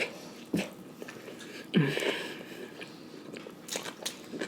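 Close-up mouth sounds of a person biting into and chewing a Popeyes fried chicken sandwich, crisp breading crunching, with the loudest bite about two seconds in and scattered smaller wet clicks around it.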